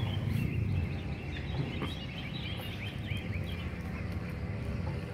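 Small birds chirping in quick short calls over a steady low outdoor rumble. Near the end a faint steady whine from the RC boat's motor comes in.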